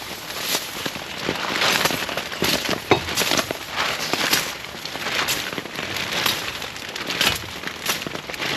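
Heavy rain falling, a dense continuous patter full of sharp, irregular drop impacts close by.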